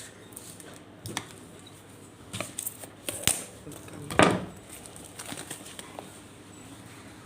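Phone box and packaging being handled: scattered clicks and short rustles, with a louder scraping rustle about four seconds in.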